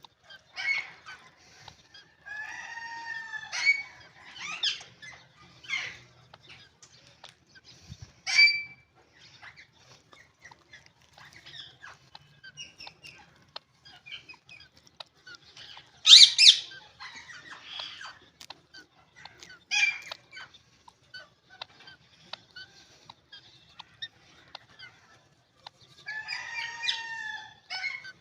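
Indian ringneck parakeets calling and chattering in short, scattered squawks and chirps, with small clicks between calls. The loudest is a harsh screech about sixteen seconds in, and there is a busy run of calls near the end.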